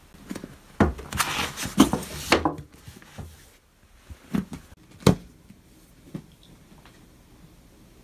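Books being set down and slid into place on a bookshelf: a quick run of knocks and rustling for the first two and a half seconds, then a few single thumps, the loudest about five seconds in.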